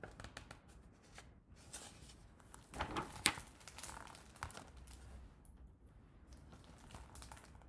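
A page of a picture book being turned by hand: faint paper rustling and crinkling, with the crispest rustle and a sharp click about three seconds in.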